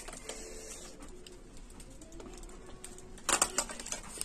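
Plastic fish bag and its paper wrapping crinkling and rustling as they are handled, with scattered small crackles and a louder burst of crinkling a little after three seconds in.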